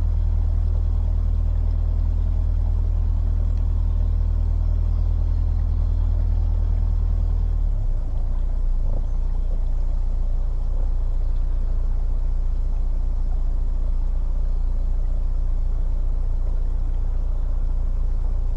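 A narrowboat's diesel engine running steadily under way, a low, even rumble that drops noticeably in level about eight seconds in.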